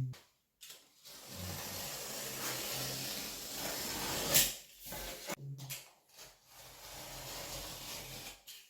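Gypsum board being cut. There are two long, scratchy scoring strokes, the first the louder, with a sharp knock about four seconds in.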